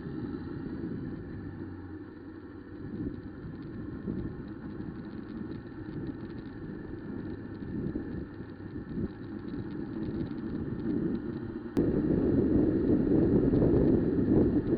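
Riding a Honda CB1000R motorcycle in strong wind: wind buffeting the microphone over the bike's engine and road noise. It becomes abruptly louder about twelve seconds in.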